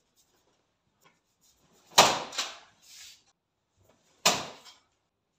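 Two sharp slapping impacts about two seconds apart as bare-fist punches strike a paper target hung from a stand, the first followed by a smaller second smack and a brief paper rustle.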